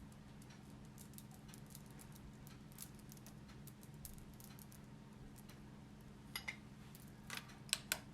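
Faint patter of tiny ticks and rustles as desiccated coconut is sprinkled over a moist cake, with a few sharper clicks near the end, over a low steady hum.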